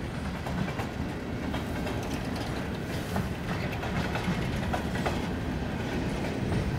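Freight train cars rolling past: a steady rumble of steel wheels on rail, with scattered clicks as the wheels cross rail joints.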